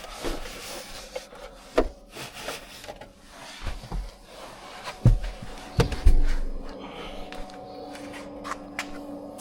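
Plastic dashboard trim panels of a Polestar 2 being handled and moved about: irregular rubbing and scraping with clicks, and a few heavy knocks about five to six seconds in.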